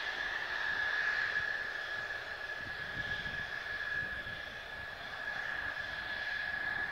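Mitsubishi F-2 fighters' F110 turbofan engines idling on the ground: a steady high whine over a broad jet rush.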